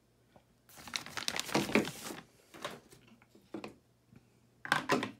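Clear plastic packaging bag crinkling as a resin vat is handled and taken out of it: a dense crackly rustle about a second in, a few small crackles, and a shorter rustle near the end.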